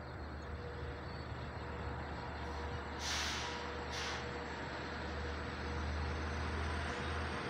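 Long Island Rail Road diesel locomotive approaching, its engine running steadily and growing a little louder as it nears. About three and four seconds in come two short hisses of air, the first longer, typical of the air brakes as the train slows into the station.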